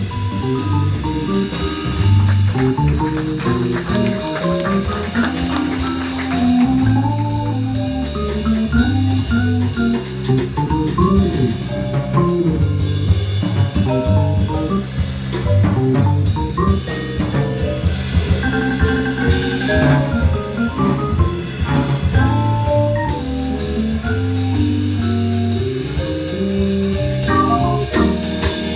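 Live jazz from a small combo: vibraphone melody struck with mallets over drum kit with cymbals and an electric keyboard, playing without a break.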